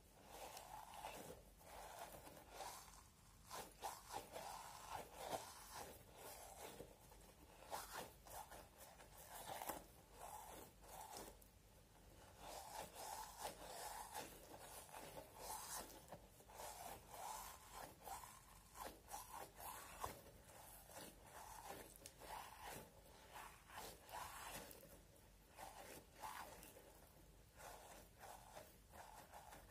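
Faint, irregular crunching and rubbing as a rubbery, bead-filled pufferfish squishy toy is squeezed and kneaded by hand.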